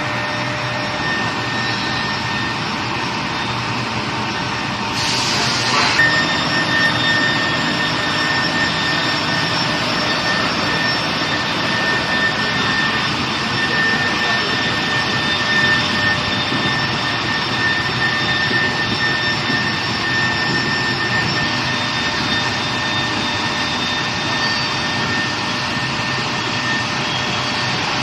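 Steady running noise of an induction pipe-hardening line: a continuous hiss with several constant high whines over it. A brief louder hiss about five seconds in.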